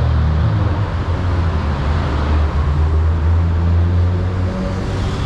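Road traffic noise: a steady low engine drone from queued trucks and cars, under a general traffic hum.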